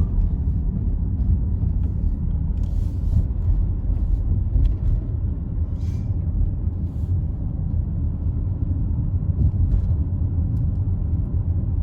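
A car driving, giving a steady low road rumble.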